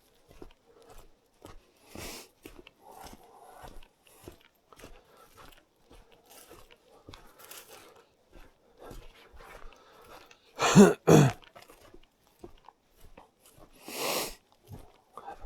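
Footsteps crunching on a wet path, about two or three steps a second. Two loud, harsh bursts come close together about eleven seconds in, and another near the end.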